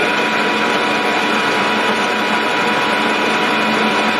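Metal lathe running with its chuck spinning: a loud, steady mechanical hum with a steady whine from the spindle drive.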